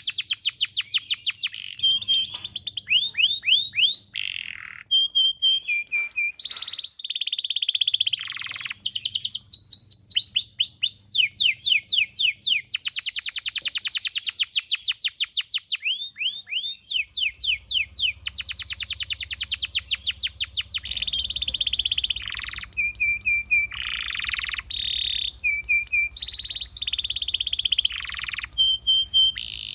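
Domestic canary singing a long, unbroken song of fast trills and rolls: runs of rapidly repeated notes that change to a new phrase every second or two, some notes sweeping downward.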